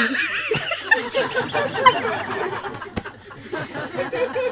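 A roomful of people chuckling and laughing softly, many voices overlapping.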